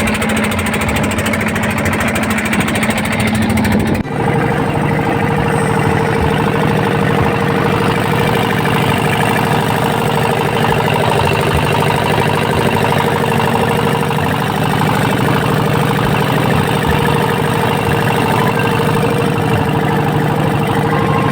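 A boat's engine running steadily underway. Its pitch changes abruptly about four seconds in and then holds steady.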